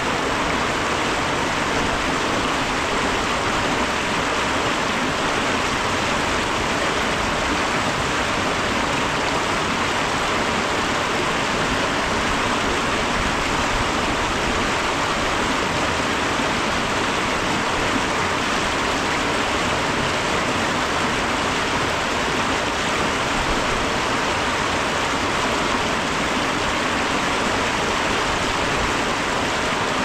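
River water rushing and churning over rock rapids, a steady, unbroken rush.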